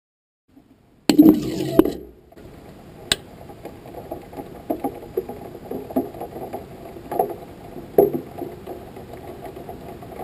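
Onboard GoPro audio from a high-altitude rocket in flight: a muffled low rumble with scattered knocks and clicks. It starts with a louder burst about a second in. It sounds like something heard under water.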